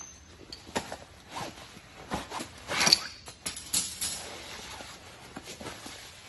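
A folding camping cot being unpacked from its nylon carry bag onto a concrete floor: fabric rustling, a long rasp about three seconds in, and light clicks and clatters as the bent-metal legs are set down.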